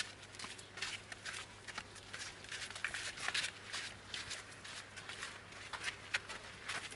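Faint, irregular crunching and rustling of footsteps on a dry dirt path, several small crackles a second.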